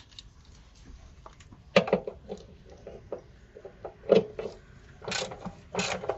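Hand ratchet and socket working on a car suspension nut: sharp metallic clanks about two and four seconds in, then a quick run of ratchet clicks near the end.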